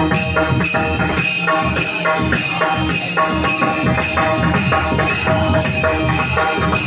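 Live dindi bhajan music: small metal hand cymbals struck in a steady rhythm, about three strokes a second, with pakhawaj drumming and held melodic tones.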